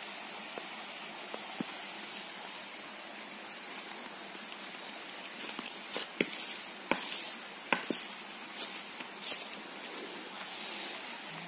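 Steady hiss of a small forest stream, with a few sharp crackles of dry leaf litter underfoot around the middle.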